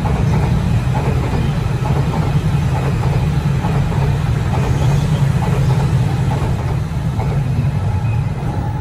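E5 series Shinkansen train passing at speed on an elevated track: a steady, loud low rumble with faint rattling from the wheels and running gear.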